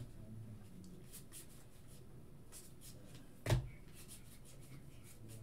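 Faint rustling and flicking of trading cards being handled and flipped through a stack, with one short knock about three and a half seconds in.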